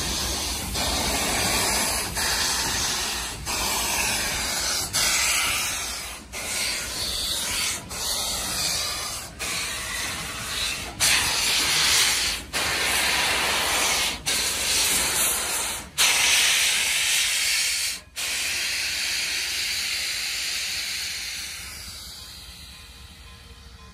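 Oil-fired steam locomotive No. 29 venting steam at its cylinders: a loud, steady hiss broken by short breaks about every second or two as it moves slowly past, fading near the end.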